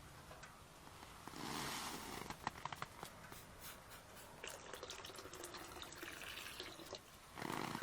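Freshly boiled water being poured, with louder surges about a second and a half in and again near the end, and small clicks and drips in between.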